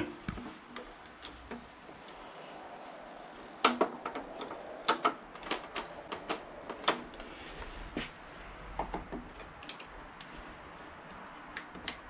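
Scattered sharp clicks and taps of a screwdriver working the two small screws of a motorcycle's front brake master cylinder reservoir cap. Most of the clicks come in a cluster starting a few seconds in, with two more near the end.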